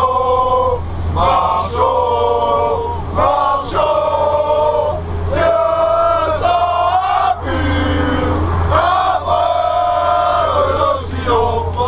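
A group of men singing together loudly, a chant of held notes in short phrases with brief breaks between them, over a steady low engine hum inside a bus.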